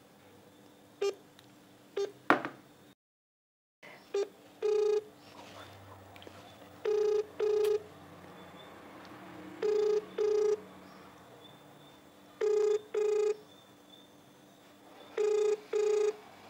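Phone call ringback tone through a smartphone speaker: a low buzzing tone in double rings, repeating about every three seconds, five times. The call is ringing unanswered. A few taps and clicks come first, then a brief dropout before the rings start.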